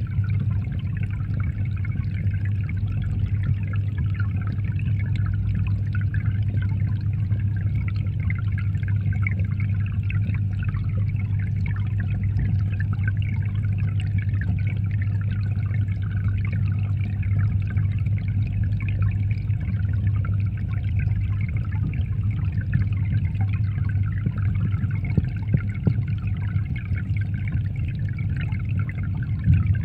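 Aquarium water pump or filter running with a steady low hum, with water trickling and splashing continuously over it.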